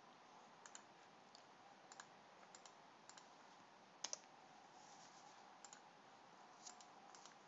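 Faint, irregular clicks of a computer mouse and keyboard, about eight in all, the loudest about four seconds in, over near-silent room tone.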